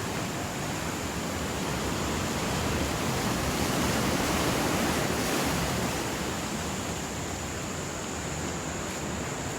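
Ocean surf at high tide, waves washing in with a steady rush of water that swells for a few seconds and then eases off.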